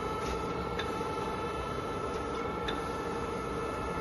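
Okamoto PS-6 surface grinder running: a steady mechanical hum with a few faint ticks.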